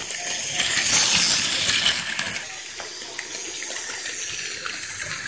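Plarail Advance 0 Series Shinkansen toy train running on plastic track, its small battery motor and wheels making a high rattling whir. It is loudest as the train passes close by about a second in, then steadier.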